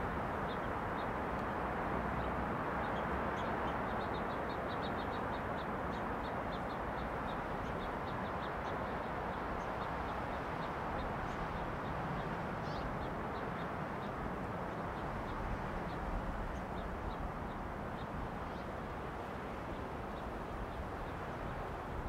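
Steady wind rushing through pine trees. A small bird gives a quick series of short, high notes about four seconds in, then single notes now and then.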